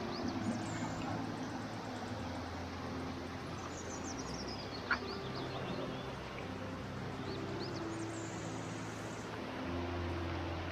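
A small forest stream rushing over rocks, a steady hiss of water, with short high bird chirps now and then and one sharp click about five seconds in.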